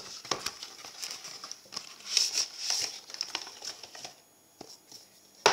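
Paper packaging of a watch box rustling and crinkling as it is handled, with many small clicks. The rustling is loudest in the middle and dies down about four seconds in, with a sharp knock at the very end.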